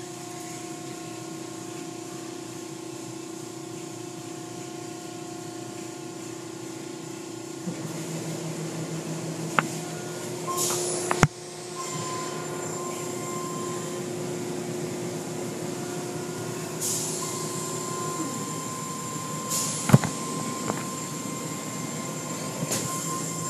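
Automatic tunnel car wash heard from inside the car: a steady machinery hum, then water spray and cloth mitter curtains sweeping over the car, with a few sharp knocks and short hissing bursts of spray.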